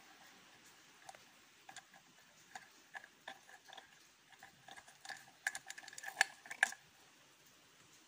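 Light clicks and ticks of small metal and plastic parts as the carbon-brush holder on a vacuum cleaner motor is worked by hand, getting denser and louder about five seconds in.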